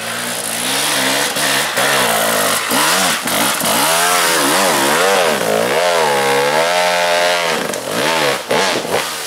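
Two-stroke Husqvarna enduro motorcycle engine revving up and down repeatedly as the bike passes close and climbs a dirt slope. It is loudest for a few seconds in the middle.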